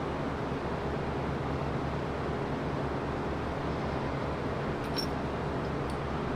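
Steady mechanical hum and whoosh of shop machinery or a ventilation fan running, with a low hum under it. A few faint light clicks come about five seconds in.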